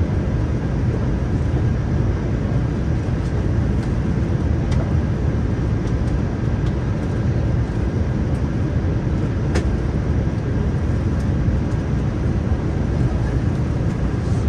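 Steady low rumble of a Boeing 787-9 in flight: engine and airflow noise heard from inside the aircraft, with a faint high hum over it.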